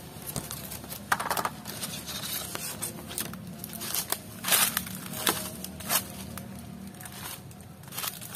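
Dry straw and dead leaves rustling and crackling, with irregular sharp crunches, several of them louder around the middle.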